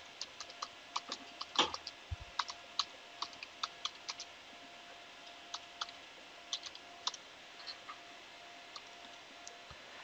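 Computer keyboard typing: quick, irregular key clicks as a terminal command is typed out. The clicks thin out to a few single presses near the end, as Enter is pressed.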